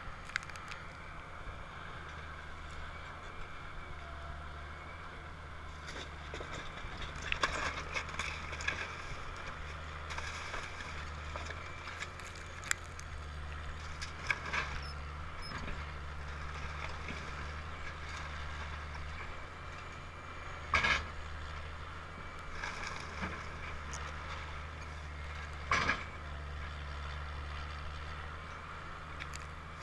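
Link-Belt tracked excavator's diesel engine running steadily as it pulls down a wood-frame house, with several sharp cracks and crashes of breaking timber and debris, the loudest two in the second half.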